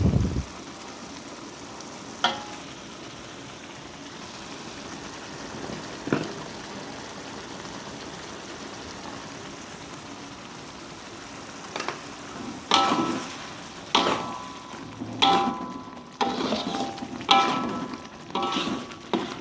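Spiced fish sizzling as it fries in a pan, with a couple of single knocks. From about twelve seconds in, a metal spatula scrapes and clanks against the pan again and again as it is stirred, and the pan rings briefly at each stroke.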